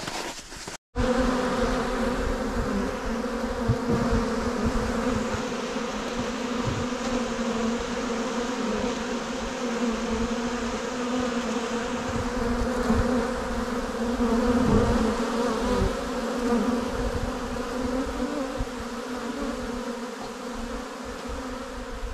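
Honeybees flying in large numbers around the entrances of a row of hives: a dense, steady buzzing hum, called a real "roar". It begins about a second in.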